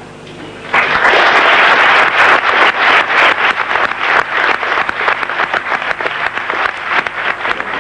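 Audience applause that breaks out suddenly about a second in and goes on as a dense, steady clatter of many hands clapping.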